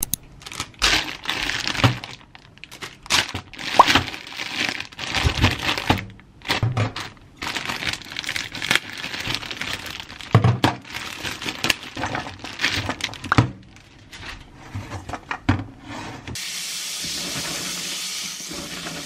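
Plastic bag of edamame pods being handled and cut open, with irregular crinkling, rustling, clicks and knocks. Near the end a steady rush of tap water starts, running over the pods as they are washed in a colander.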